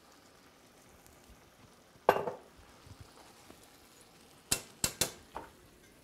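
Metal kitchen tongs clinking against a cast-iron pan: one loud ringing clank about two seconds in, then a quick run of three or four sharp clicks a little past the middle. A faint sizzle runs underneath.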